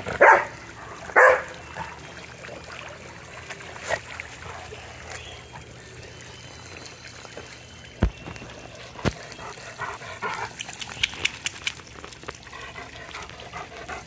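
A golden retriever barking twice in quick succession near the start, over the steady spray and patter of a splash pad's sprinkler water. Later come two sharp knocks and a short run of quick clicks.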